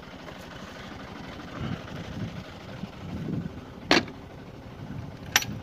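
Tractor engine idling in the background, with two sharp knocks about a second and a half apart as a stone is struck against the tipping trailer's tailgate latch to free it.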